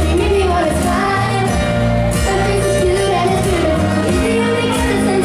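A male singer singing a pop song live over loud backing music, his melody wavering over sustained chords and a steady bass.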